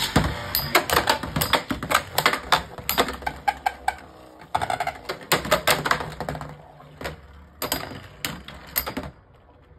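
Beyblade X spinning tops, one a Dran Sword 3-60 Flat, colliding in a plastic stadium: rapid, irregular clacking of hits, starting abruptly and dying down about nine seconds in.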